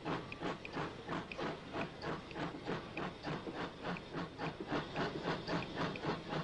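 Steam train pulling away: a steady, rhythmic chugging of about three to four beats a second over a constant hiss.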